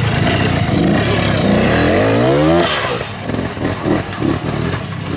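Classic trial motorcycle engine ridden slowly through a section: the revs rise for about a second, then the throttle shuts about two and a half seconds in and the engine drops to a lower, uneven run.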